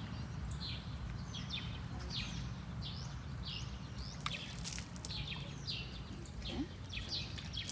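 A bird calling over and over, a short falling chirp about twice a second, over a low steady rumble.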